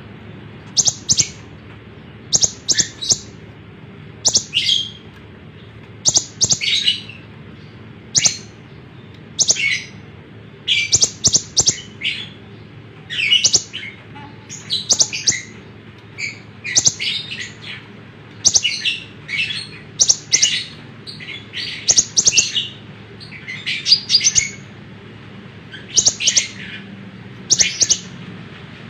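Konin (kolibri ninja) sunbird singing in full voice: short bursts of high, rapid chirping notes come about once a second, over a faint steady low hum.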